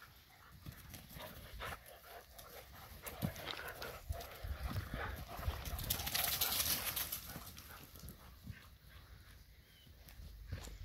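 Dogs (a borzoi, a golden retriever and a poodle) running and playing on grass, their paws thudding in quick irregular strikes. The sound is loudest about six seconds in, when they race close past.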